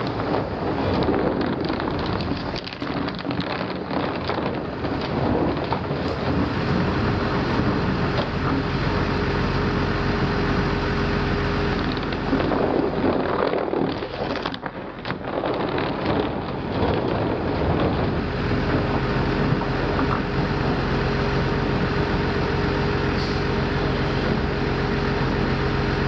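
Heavy-transport vehicle's diesel engine running steadily, under irregular rumbling and scraping as heavy plastic ground protection mats are dragged and laid on the road surface.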